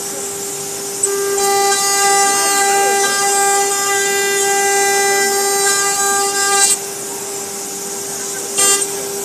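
CNC router spindle whining at a steady high pitch as its bit cuts a sheet. The whine grows louder and fuller from about a second in, then drops back to a plainer tone near three-quarters of the way through.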